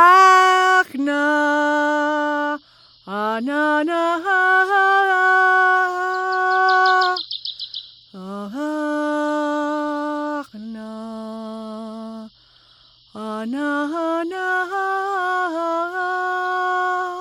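A single human voice toning: about six long sustained vocal notes, each sliding up into its pitch and then held steady, with short breaks for breath between them. One note near the middle is sung lower than the others.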